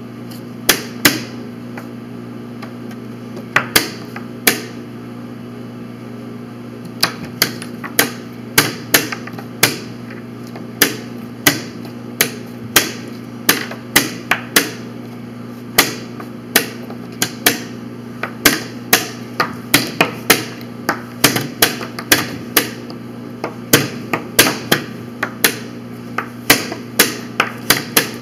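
Plastic chess pieces clacking down on a vinyl board and the buttons of a digital chess clock being slapped as two players move in quick alternation: sharp, irregular clacks that come faster in the second half.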